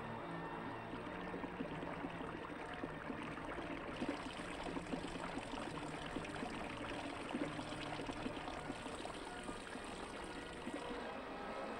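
A thin stream of water trickling down a rock face and splattering into hollowed stone basins, a steady running and splashing. It grows brighter and fuller about four seconds in.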